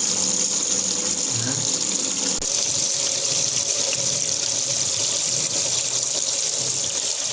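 Water running through a toilet flush tank's float-operated fill valve as the newly fitted tank fills from the mains supply, a steady hiss.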